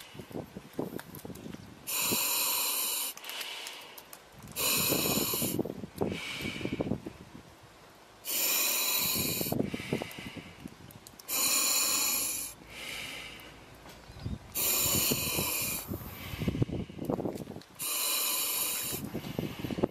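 Breathing through a full-face gas mask: six loud hissing breaths through the mask, each about a second long and coming about every three seconds, with lower rasping breaths between them.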